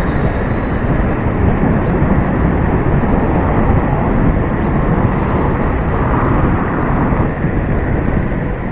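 Steady, loud rumble of road traffic and wind heard from a bicycle riding along a city road.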